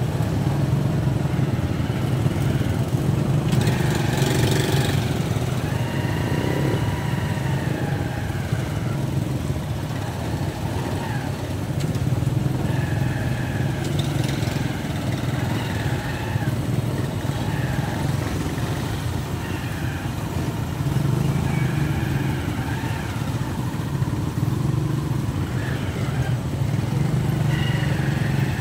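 Motorcycle engines of tricycles idling and running in slow street traffic, a steady low hum throughout, with a short hiss about four seconds in.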